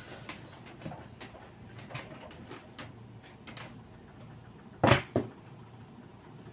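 Scattered light clicks and knocks of hard parts being handled, with two loud knocks close together about five seconds in.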